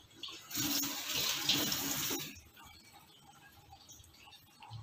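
Water running from a kitchen tap for about two seconds, then turned off.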